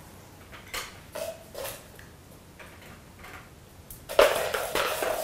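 A few light clicks and taps, then a louder scuffling clatter about four seconds in, from a small dog moving on a tiled floor.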